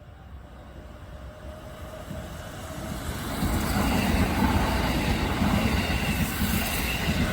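Keisei electric train running, its rumble growing louder over the first three or four seconds and then holding steady, with a few steady whining tones over it.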